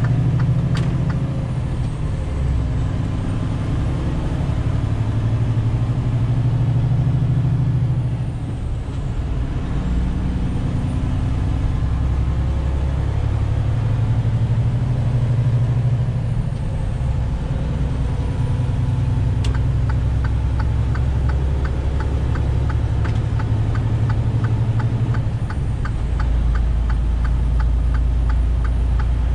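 Semi-truck's diesel engine and road noise droning inside the cab as the truck gathers speed. A steady turn-signal ticking plays at the start and again from about two-thirds of the way through.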